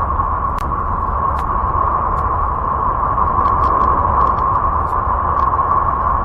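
Space sound of a planet, of the kind made from spacecraft data: a steady droning hiss with a deep rumble underneath and a few faint scattered ticks.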